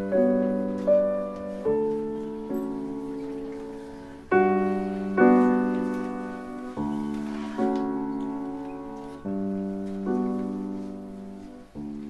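Slow solo piano music: chords struck about once a second, each ringing and fading away before the next.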